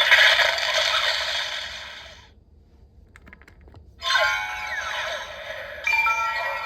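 Electronic sound effects and music from a DX Arc Cube Premium transformation toy's small speaker: many falling pitch sweeps, a gap of nearly two seconds with a few faint clicks, then more falling sweeps and steady held tones near the end.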